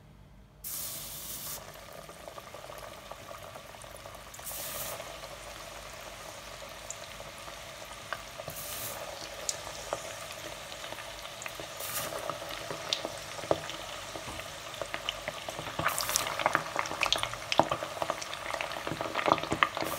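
Starch-coated chicken wings deep-frying in oil at 200 °C. The sizzle starts suddenly about a second in and flares up again every four seconds or so as more wings go in. It settles into a steady bubbling crackle that grows busier and sharper near the end.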